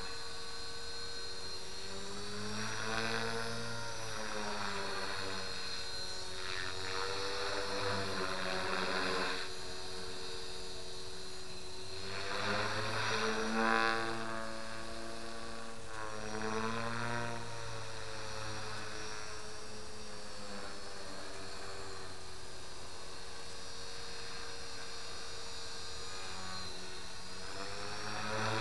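Align T-Rex 450 Pro electric RC helicopter in flight, the whine of its rotors and brushless motor rising and falling in pitch as it manoeuvres. It grows louder in several passes, loudest about 13 to 14 seconds in, over a steady hum.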